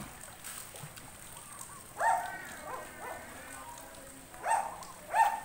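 A dog barking in short calls: once about two seconds in and twice near the end. Faint splashing water runs underneath.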